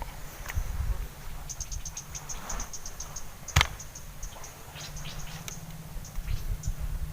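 Rapid, high-pitched ticking chirps of an insect, about eight a second for two seconds, then a few scattered ones. One sharp click about three and a half seconds in is the loudest sound.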